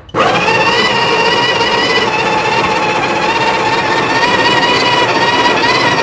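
Breville Barista Touch's built-in conical burr grinder starting up and running steadily with a high motor whine, grinding coffee beans on a fine setting into the portafilter for a timed dose.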